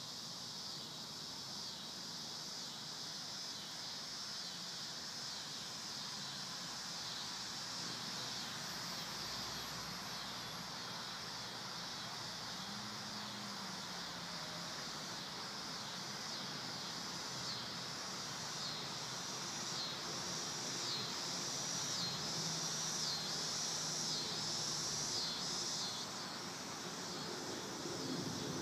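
Steady chorus of insects in a field, pulsing at about one beat a second through the second half. Under it, the faint hum of an electric radio-controlled P-47 Thunderbolt's motor and propeller, its pitch sliding down once as it passes.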